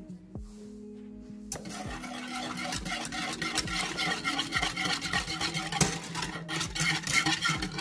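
Wire whisk stirring hot chocolate mix into liquid in a saucepan, a rapid run of scraping and clinking against the pan that starts about one and a half seconds in, over background music.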